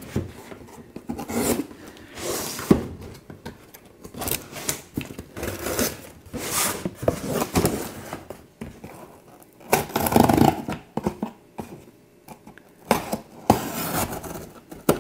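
A cardboard shipping box being opened and unpacked by hand: irregular rustling and scraping noises broken by sharp clicks, with a louder burst about ten seconds in.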